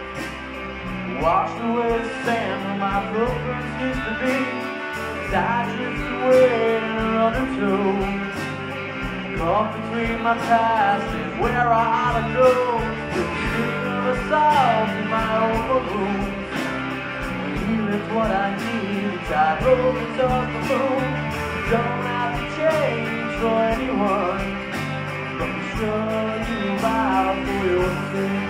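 Live rock band playing electric guitars and drums, with a voice singing over them.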